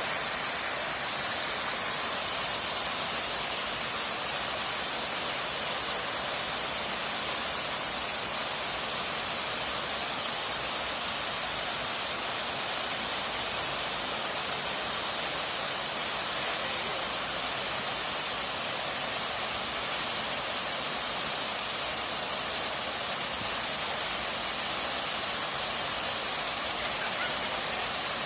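Waterfall: water falling and rushing over rocks in a steady, unbroken hiss.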